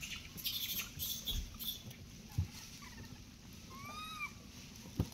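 Dry leaf litter rustling and small crackling sounds of monkeys feeding on mangoes, with a soft knock about two and a half seconds in. A few brief arched chirps can be heard about two seconds and four seconds in.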